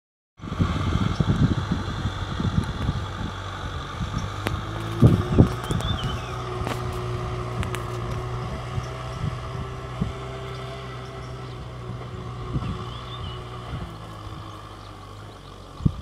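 Kubota M6040 SU tractor's four-cylinder diesel engine running steadily under load while ploughing. Low gusty rumbles of wind on the microphone come and go over it, strongest in the first few seconds.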